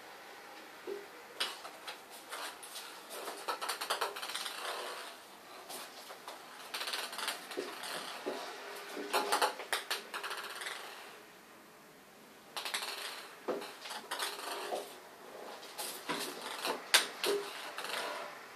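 Cats' claws scrabbling and skittering on the hard surface of an empty bathtub as they play: bursts of rapid clicks and scratches with short pauses between, and a quieter spell a little past the middle.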